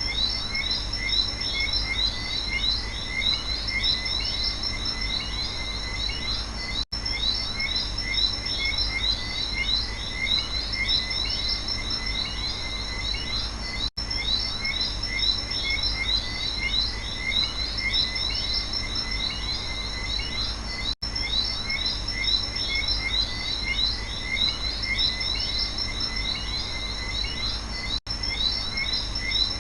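Night rainforest chorus of frogs and insects: dense, overlapping short chirps over a steady high insect drone. The whole sound cuts out for an instant about every seven seconds.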